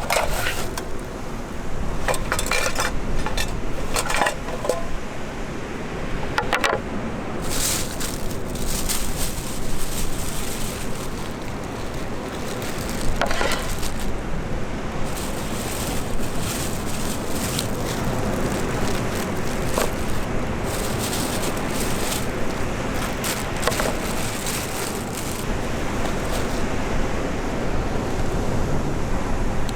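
Scattered clinks and clatters of camp cooking gear being handled, irregular and sharp, over a steady wash of wind and surf.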